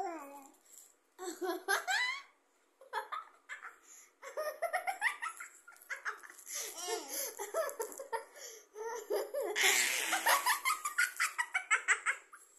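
Laughter in several bouts of quick, repeated giggles, high-pitched and close by, loudest near the end.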